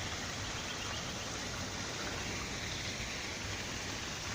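Steady hiss of running water from a rainwater drain outlet spilling into a creek.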